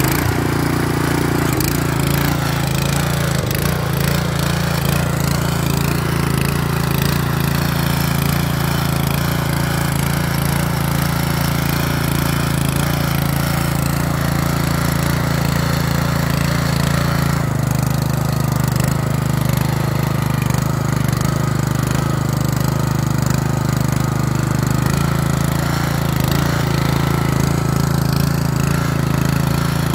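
Loncin 196 cc single-cylinder four-stroke tiller engine running steadily under load while its tines churn through soil. The engine note drops a little at about 17 seconds and picks back up near 25 seconds.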